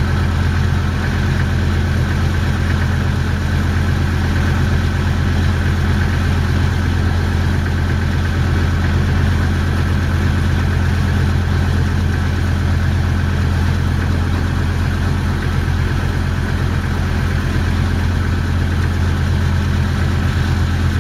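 Motor boat's engine running steadily at low speed as the boat makes way, an even deep drone that does not change.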